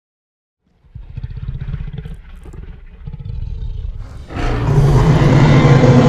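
Custom-made Tyrannosaurus rex roar sound effect. After a short silence, a low rumbling growl starts about a second in. About four seconds in, a much louder, deep roar breaks out.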